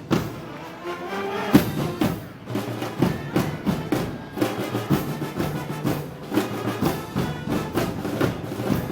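A brass-and-percussion band playing Moros y Cristianos festival march music, with a steady drum beat under the wind instruments.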